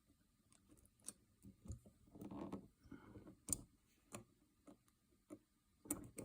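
Faint scattered clicks and short scrapes of fingers working a small greased spring against the plastic shell and bolt catcher of a TP50 launcher, trying to snap the spring's long leg into place.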